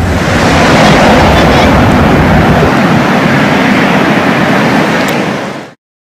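Loud, steady road traffic noise from cars passing on a busy multi-lane road. It cuts off abruptly near the end.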